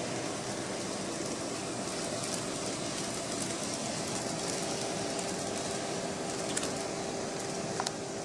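Fleischmann N-scale model trains running around a loop of track: a steady whirr from the small locomotive motors and the wheels on the rails, with a couple of sharp clicks near the end.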